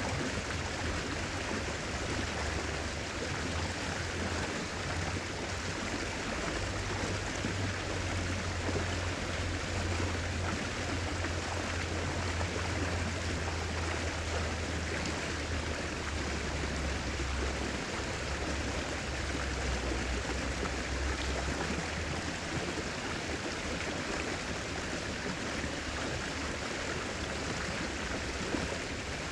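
Steady rushing of flowing river water, with a low rumble underneath that swells and eases.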